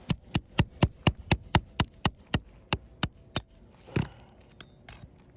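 Hammer striking a steel precision nail puller about thirteen times in quick, even blows, about four a second, with a high metallic ring, then one last blow: driving the puller's jaws under a roofing nail in an asphalt shingle to pull it.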